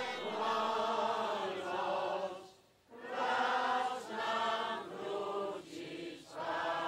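A large crowd singing a hymn together in long held phrases, with a short break about two and a half seconds in.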